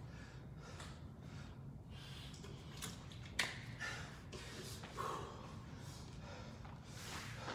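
Faint breathing and sniffing from a person resting between exercises, with one sharp click about three and a half seconds in.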